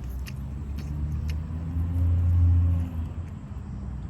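A car passing by, its low engine rumble swelling to a peak about two seconds in and then fading away, with a few faint ticks early on.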